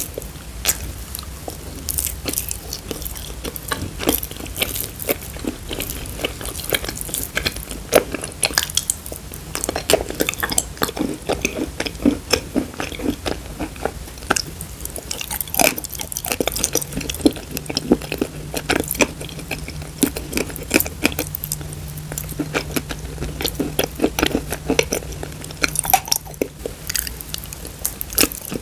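Close-miked chewing and biting of thick clay paste: dense wet mouth clicks and small crunches. A metal spoon scoops the paste from a glass bowl, under a low steady hum.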